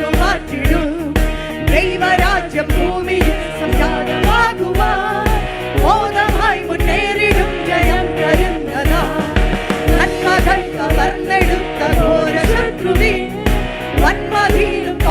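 Christian worship song, a voice singing over a band with a steady beat of about three low thumps a second.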